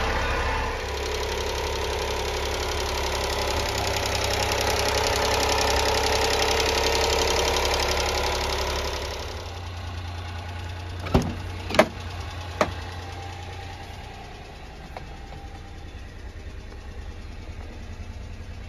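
Honda Acty truck's small three-cylinder engine idling steadily, louder in the first half and then quieter. Three sharp clacks come a little after the middle as the cab door is worked open.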